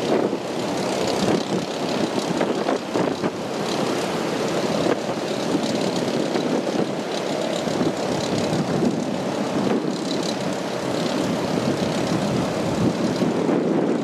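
Storm wind and surf making a steady, loud rushing noise, with gusts buffeting the microphone.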